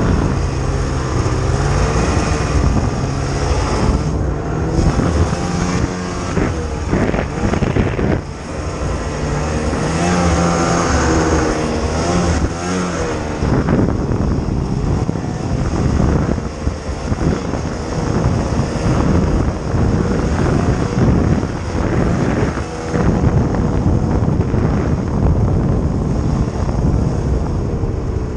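Snowmobile engine running under throttle through deep snow, its pitch rising and falling over and over as the rider eases off and opens up again, over a steady rush of noise.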